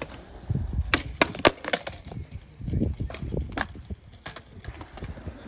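Skateboard on concrete during a halfcab heelflip attempt: a short rolling rumble, then a quick run of sharp wooden knocks as the deck pops, lands and clatters on the ground. More scattered knocks of the board follow about three seconds in.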